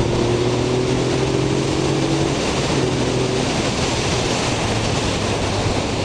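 Heavy wind noise rushing over the microphone of a motorcycle at speed. The Yamaha XSR900's 850 cc inline three-cylinder engine runs steadily beneath it, fainter after about two seconds.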